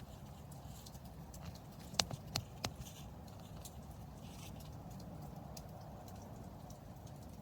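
Wood campfire embers crackling, scattered small ticks with three louder snaps about two seconds in, over a low steady background.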